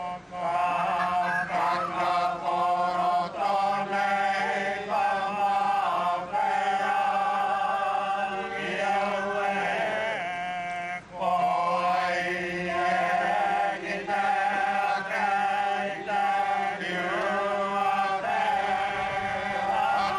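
Voices chanting in long, held, sliding phrases, with a short break about eleven seconds in, over a steady low hum.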